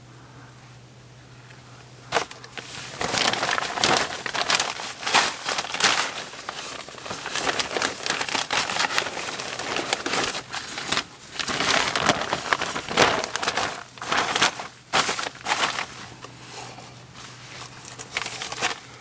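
Crinkling and scraping of someone crawling across a crawl-space floor, in irregular bursts from about two seconds in until near the end, over a faint steady low hum.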